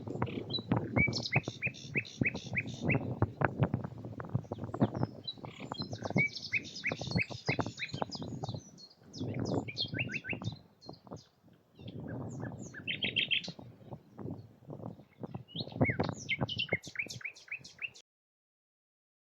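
A small songbird singing in several phrases of rapid, repeated high chirps and trills, over a steady run of low rustling knocks. The sound cuts off abruptly just over a second before the end.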